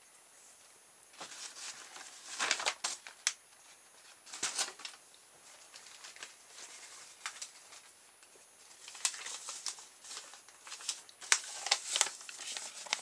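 Intermittent rustling and crinkling of something being handled, in several short bursts with a few sharp clicks, the loudest near the end.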